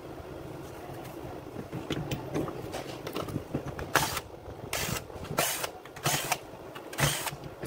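Cordless drill-driver whirring in five short runs, each under half a second and about a second apart, as it backs the screws out of a Makita UC4551A electric chainsaw's plastic housing. Before that there is light clatter of parts being handled.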